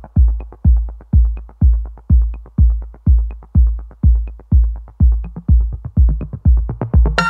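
Electronic background music: a steady kick-drum beat at about two beats a second, with synth chords joining near the end.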